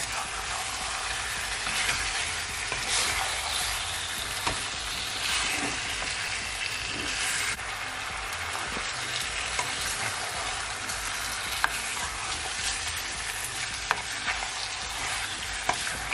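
Chicken pieces sizzling steadily in caramelized brown sugar and oil in a frying pan. A spatula turning them knocks against the pan now and then.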